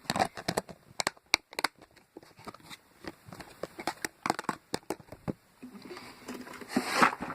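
Bead-filled putty foam crackling and clicking irregularly as it is squeezed and handled.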